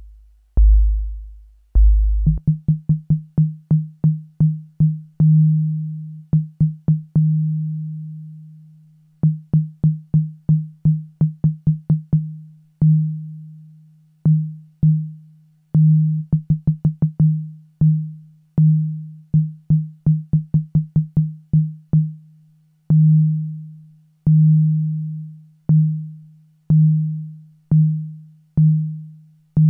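Waldorf Blofeld synthesizer playing a plain low tone as a stream of irregularly spaced notes, each starting with a click, after three lower notes at the start. The notes die away over very unequal times, from short blips to tails over a second long, because a sample-and-hold LFO is modulating envelope 3's decay time directly, so the decay keeps changing and is not a clean, constant one.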